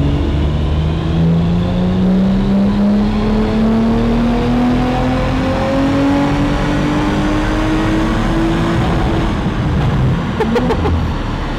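Audi RS5's twin-turbo 2.9-litre V6, fitted with aftermarket downpipes and a custom intake, at full throttle on a chassis dyno during a stock power run: the engine note climbs smoothly for about nine seconds in a single-gear pull. It then lifts off with a short burst of sharp cracks from the exhaust.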